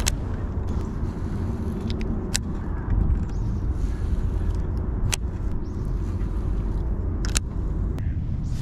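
A steady low rumble with a few sharp clicks about two to three seconds apart.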